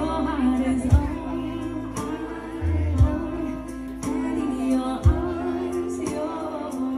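Live acoustic band: a woman singing with acoustic guitar and violin over sustained chords, with a low beat about every two seconds.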